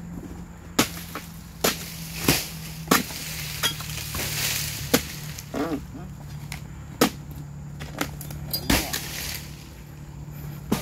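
Long-handled oil palm harvesting chisel (dodos) striking and cutting into palm frond bases: a series of sharp, irregularly spaced strikes.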